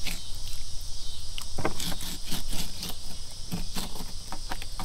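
A fillet knife cutting and scraping along a catfish's spine, heard as irregular small clicks and scrapes. Under it runs a steady high hiss of insects.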